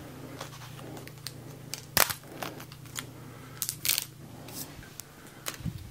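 Irregular sharp clicks and light clatter of small hard objects being handled. The loudest click comes about two seconds in and a cluster follows near four seconds, over a low steady hum.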